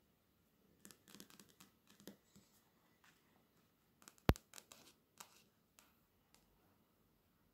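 Long fingernails and fingertips scratching, rubbing and tapping on a glossy paper catalogue cover, in clusters of crisp little scratches and clicks, with one sharp click about four seconds in.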